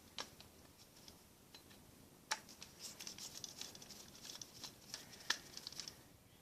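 Faint clicks and scratching of a plastic wall outlet being handled, with a sharper click about two seconds in and another about five seconds in, and a run of small ticks between them.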